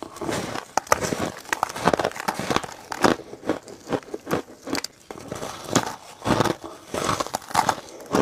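A slab of crushed ice being bitten and crunched: a rapid, irregular run of sharp crackling crunches.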